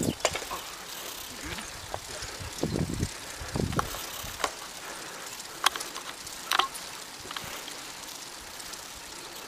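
Steady wind and riding hiss on the microphone of a camera carried by a cyclist riding a road bicycle, with a few sharp clicks and brief low buffets about three seconds in.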